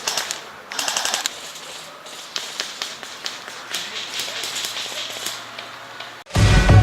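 Airsoft guns firing: a quick burst of rapid clicking shots about a second in, then scattered single shots and short strings. Loud electronic music cuts in abruptly near the end.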